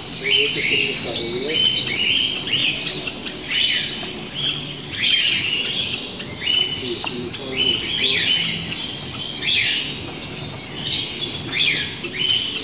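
Caged canaries chirping: short, high, downward-sweeping chirps from several birds, coming in quick clusters one after another.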